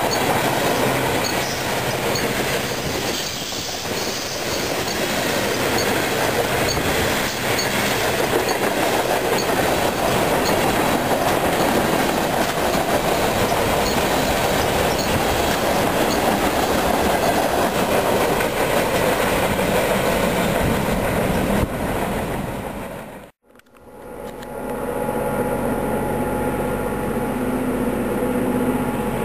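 Freight cars of a passing freight train, boxcars and tank cars, rolling past at close range: a loud, steady noise of wheels on rail. About 23 s in it cuts off, and a quieter steady engine drone with a few held tones takes over.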